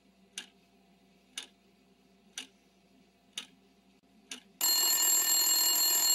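A clock ticking about once a second over a faint hum, then, about four and a half seconds in, a loud alarm-clock bell rings for about two seconds.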